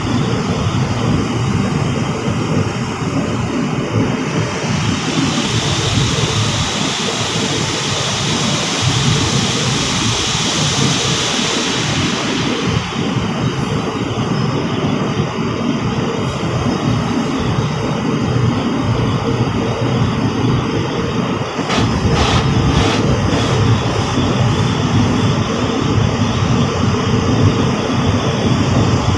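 Automatic car wash heard from inside the car: water spray and cloth brushes working over the glass and body in a steady rumbling wash. A high hiss of spray swells for about ten seconds in the first half, and a few sharp taps come about two-thirds of the way through.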